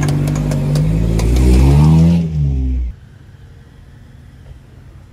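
Suzuki Sidekick's engine revving hard as it climbs a rocky rut, its pitch rising and then falling, with some clatter of rock and suspension. The sound cuts off abruptly about three seconds in, leaving only faint background.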